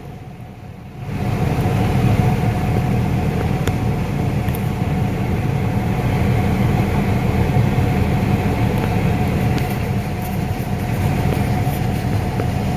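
Farm tractor's diesel engine running steadily under way, heard from inside the cab: a low rumble with a steady whine above it. The sound is briefly muffled and quieter for about the first second.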